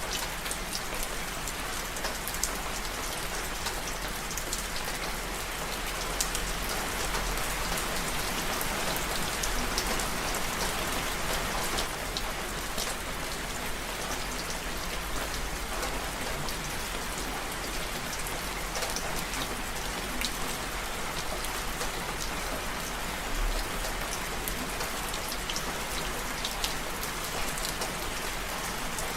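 Steady rainfall, a dense even hiss of rain with many small individual drop ticks scattered through it.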